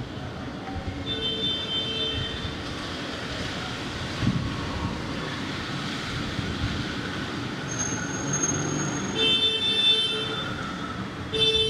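Busy street traffic running steadily, with vehicle horns honking: one about a second in, a longer run of honks around nine to ten seconds, and another near the end. A thin high tone sounds briefly just before the later honks.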